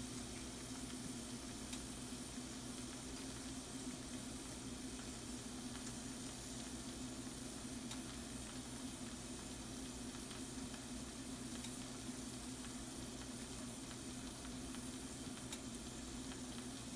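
Shrimp and mushrooms sizzling steadily in a frying pan, with scattered small pops, over a steady low hum.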